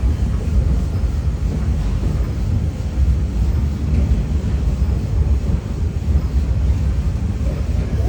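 Walt Disney World Railroad train rolling along the track, heard from on board a passenger car: a steady low rumble.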